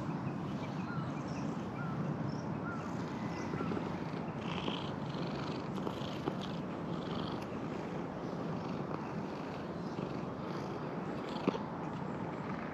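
Black cat purring steadily as it is stroked, with one short click near the end.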